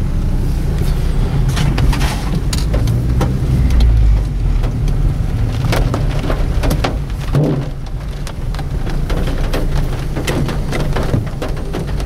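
Car driving slowly, heard from inside the cabin: a steady low rumble of engine and tyres with many scattered sharp clicks and crackles.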